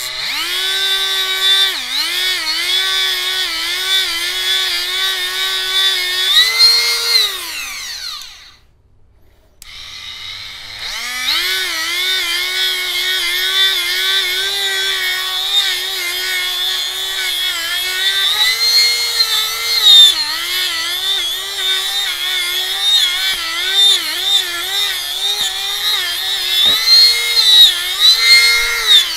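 Dremel rotary tool with a small wire brush running at high speed, whining as it scrubs rust out of the balancing holes drilled in a rusty tractor flywheel; its pitch dips again and again as the brush is pressed into the holes. It winds down and stops about eight seconds in, spins back up about two seconds later, and winds down again near the end.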